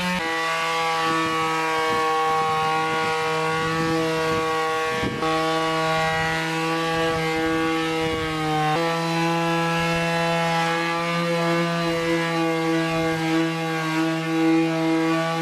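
Electric power tool motor running steadily on wood, with a slight change in pitch about nine seconds in and light scraping alongside.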